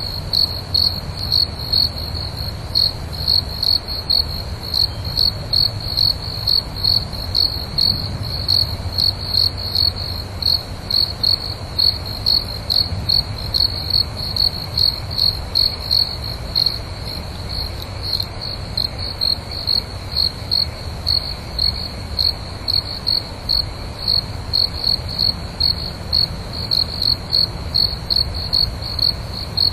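A night insect chirping without pause, a high pulsed chirp repeated about twice a second, over a low steady hum.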